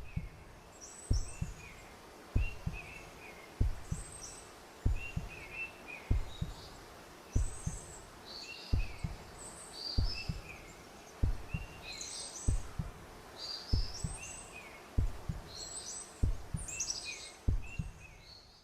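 Birds chirping in short repeated phrases over slow, even low thumps that come in pairs about every second and a quarter, like a heartbeat.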